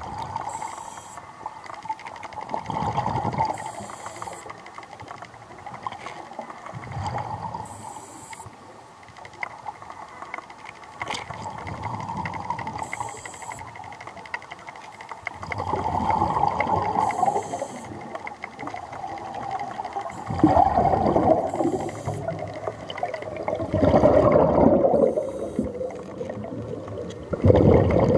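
A scuba diver breathing through a regulator underwater, recorded close by. Each breath is a short hiss on the inhale, then a burst of bubbling on the exhale, about one breath every four to five seconds. The exhaled bubbles grow louder in the second half.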